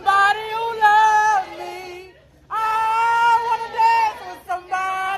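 A woman singing loudly along to music that plays only in her silent-disco headphones, so her voice is heard bare with no backing track: long held notes in phrases, broken by a short pause about two seconds in.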